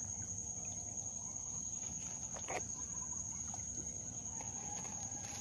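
Steady high-pitched insect chorus, one unbroken pitch, with a faint click about two and a half seconds in.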